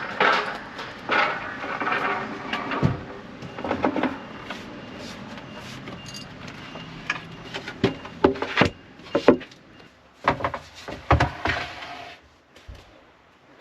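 Irregular wooden knocks and clatter of pine timber boards being handled and shifted, busiest at the start and again in the second half before settling near the end.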